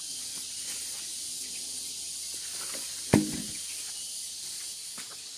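Steady high-pitched drone of insects, with a single sharp knock about three seconds in.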